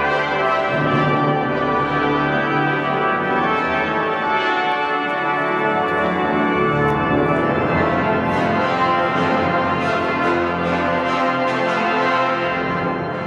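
Cathedral pipe organ playing a full-chorded recessional voluntary, fading out near the end.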